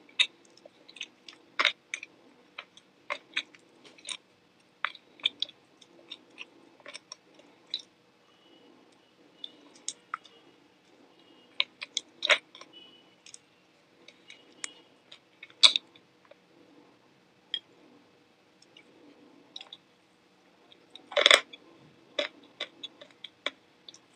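Close-miked eating sounds: irregular wet clicks and crunches of chewing and lip smacking on spoonfuls of crumbly food, with one louder crunch near the end.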